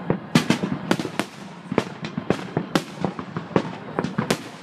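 Aerial fireworks shells bursting, a rapid, irregular series of sharp bangs, about a dozen overlapping in quick succession.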